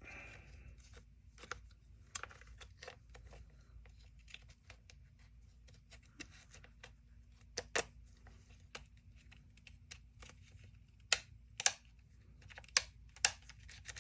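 Scattered light clicks and taps of small parts being handled and fitted into a cordless impact driver's plastic housing, with a few sharper knocks in the second half.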